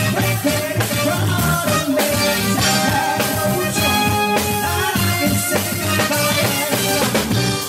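Live band playing a pop song: electric keyboard, bass and drums with a steady beat, and a singer on microphone.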